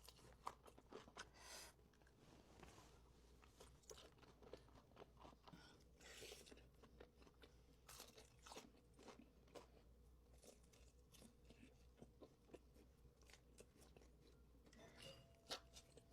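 Faint close-up crunching and chewing of crispy fried food, in many short crackles.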